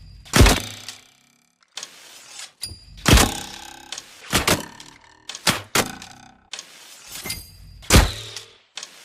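A recurve bow being drawn and shot again and again: each shot is a sharp thunk with a brief ringing tail, about six in all, with quieter noise between the shots.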